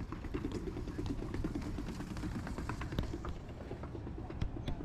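Footsteps and irregular taps on boardwalk planks over a steady low rumble of outdoor noise, with one sharp click about three seconds in.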